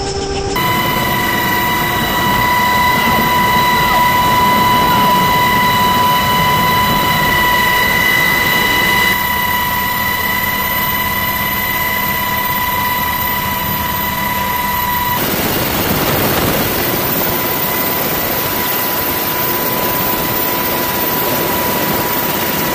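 Navy helicopter noise heard from inside the aircraft: a steady low engine and rotor drone with a steady high whine on top. The sound changes abruptly twice; about two-thirds in it turns into a louder rushing noise with the whine fainter.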